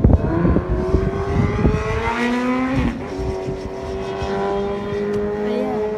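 A car engine accelerating hard. Its pitch rises for nearly three seconds, dips briefly about three seconds in as at a gear change, then holds steady.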